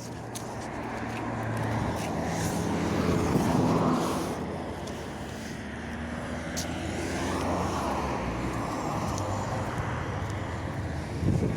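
MAZ-105 city bus under way, its engine and drivetrain rising in pitch as it picks up speed, easing off about four seconds in, then pulling up again, with scattered rattles.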